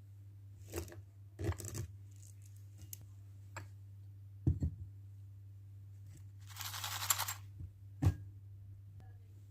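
Small handling sounds: a few sharp knocks and clicks, and about a second of crinkling, tearing wrapper noise about seven seconds in, over a low steady hum.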